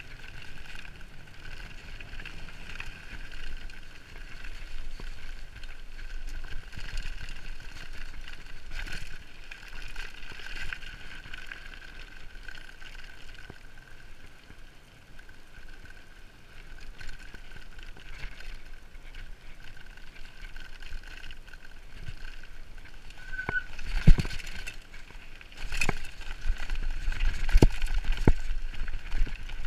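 Mountain bike rolling fast down a dirt track: steady rolling noise with a high, even hum, and several sharp knocks and rattles from bumps in the last few seconds.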